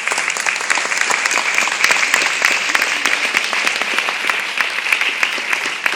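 Audience applauding, many people clapping at once, easing off slightly near the end.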